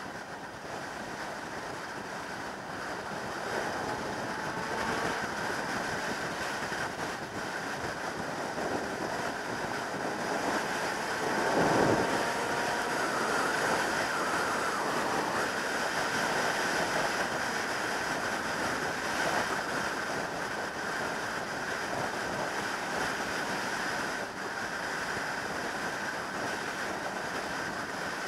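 Wind rushing over the camera microphone on a Yamaha YZF600R Thundercat sportbike at motorway speed. The inline-four engine note sits faintly underneath and climbs slowly in pitch, and there is a brief louder rush of noise about twelve seconds in.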